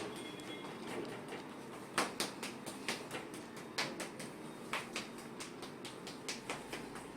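Light, irregular taps on the patient's leg, a few a second with the sharpest about two seconds in: manual tapping of the tight hamstring and calf muscles to loosen them.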